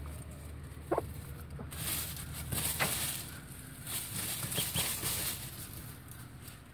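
Rustling and scratching in straw bedding as a silkie hen and her call ducklings move about, with one short cluck from the hen about a second in.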